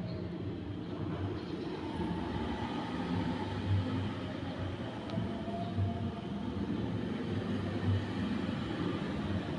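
Steady low mechanical rumble, swelling into a deeper throb about every two seconds.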